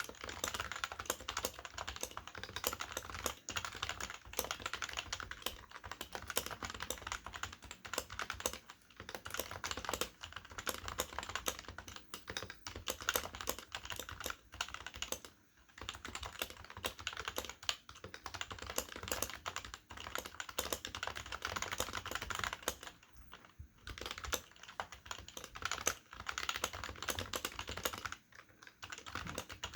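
Continuous fast typing on a stock HHKB Professional keyboard with Topre switches (rubber domes over springs) and PBT dye-sub keycaps, with a few brief pauses.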